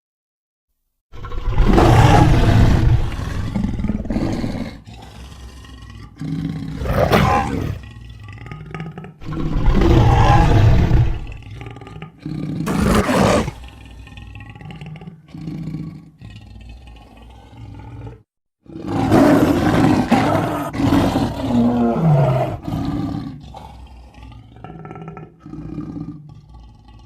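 Lion roar sound effects: about five loud roars with short quieter gaps between them, the last one longer.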